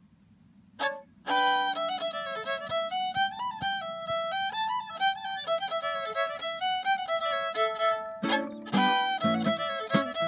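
Fiddle playing a lively Irish jig, starting about a second in. Acoustic guitar chords join beneath it about eight seconds in.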